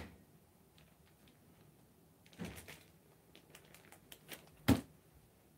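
Belongings being handled and tossed while packing a bag: scattered light rustles and clicks, a soft thud about two and a half seconds in and a louder thump near the end.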